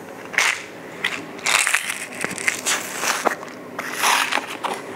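A new plastic bottle of popcorn kernels being handled and opened: scraping, crackling noises and sharp clicks in a few irregular bursts.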